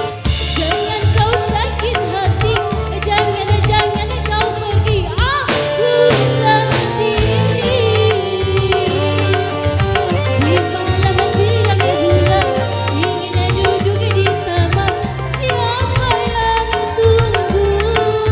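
Dangdut koplo music played by a band: a steady, busy drum beat and bass line with a wavering melody line over it.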